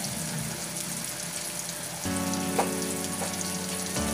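Blocks of tofu shallow-frying in hot oil in a wok, a steady crackling sizzle. About halfway through, music with sustained pitched notes comes in over it.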